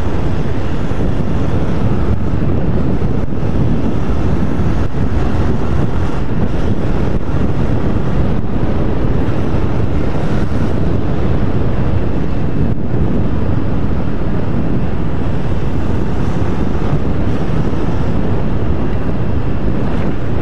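Steady wind rush on the microphone over a Honda CB250F Twister's single-cylinder engine, running at an even cruising speed of about 80 km/h.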